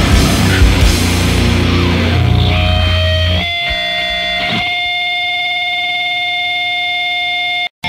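Goregrind band playing heavily distorted guitar, bass and drums. About three and a half seconds in the band stops and a distorted electric guitar is left ringing on steady held feedback tones. Near the end it cuts off into a split-second of silence, and the next track begins.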